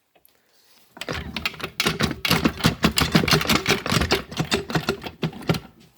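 Rapid, irregular metallic clicking and rattling from hand work on a Turbo 350 automatic transmission, starting about a second in after a brief near silence.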